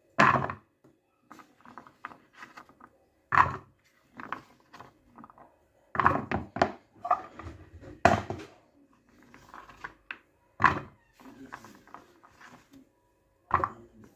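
Diced butternut pieces being put into a saucepan: a run of sharp knocks and clatters, about seven loud ones a second or two apart with softer knocks between.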